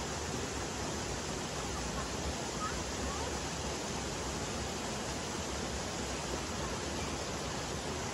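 Steady rushing of flowing water, an even noise with no rhythm and no change in level.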